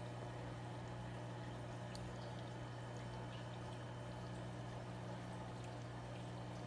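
Aquarium filter or pump running: a steady low hum with water bubbling and trickling.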